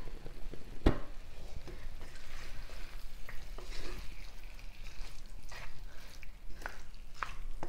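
Wooden spatula stirring and scraping chicken fry around a heavy black pot, with a faint sizzle from the hot pan. A single sharp knock about a second in.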